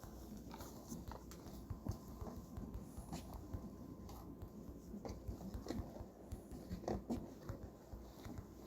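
Faint handling noise: scattered small clicks and rustles, with a few brief murmured voices.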